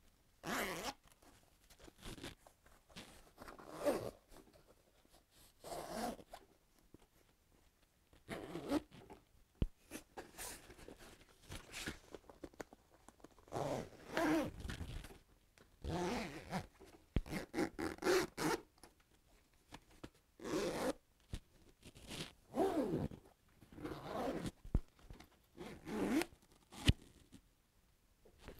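Zips on a textile motorcycle airbag rucksack being pulled open and shut, a long run of separate zip strokes, some quick and some drawn out, starting and stopping throughout.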